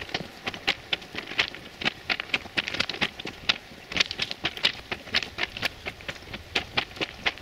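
Footsteps crunching on the loose stone ballast of a railway track, an uneven run of sharp gravel crunches at a walking pace.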